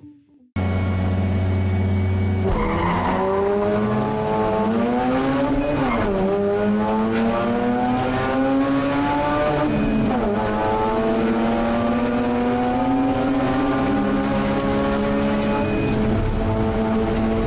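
Mazda RX-8 Cup race car's twin-rotor Wankel rotary engine heard from inside the cabin. A steady drone gives way, about two and a half seconds in, to hard acceleration through the gears, with upshifts about six and ten seconds in, after which it holds high revs.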